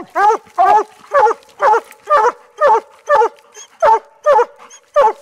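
Two coonhounds barking treed, a steady run of short barks about two a second: the sign that they have a raccoon treed in a den.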